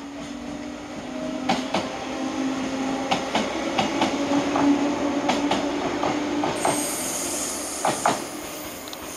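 Shinano Railway 115 series electric multiple unit running past close by, with a steady hum from its motors and gearing and its wheels clicking over rail joints. A high-pitched wheel squeal joins about two-thirds of the way through.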